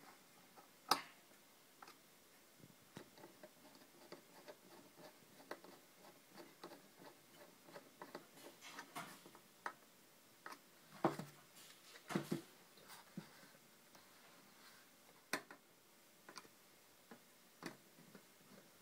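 Small screws being turned by hand with a screwdriver into a dummy security camera's housing: faint, irregular light clicks and ticks of the screwdriver tip on the screws, with a few sharper knocks against the housing.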